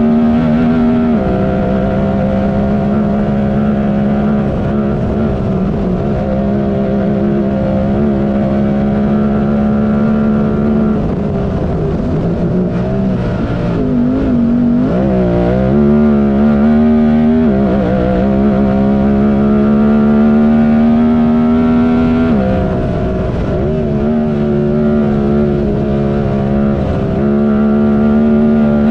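Honda Talon race UTV's parallel-twin engine running hard at high, steady revs. The pitch drops suddenly about a second in and again near the end, and it wavers up and down for a few seconds in the middle.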